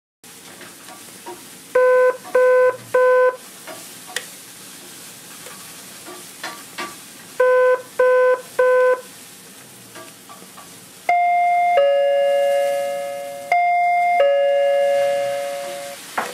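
Electronic watchdog alarm unit sounding two sets of three short, even beeps, then a two-tone ding-dong chime, a high note followed by a lower fading note, heard twice.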